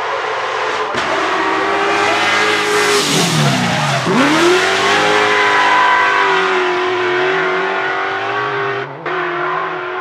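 Drift car's engine held at high revs with tyres screeching under it; about three seconds in the revs fall sharply and climb straight back up, then hold steady, with a brief cut near the end.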